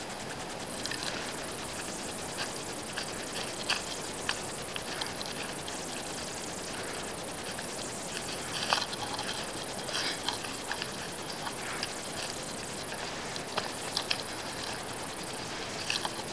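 Footsteps on a hiking trail: irregular crunches and scuffs over a steady hiss.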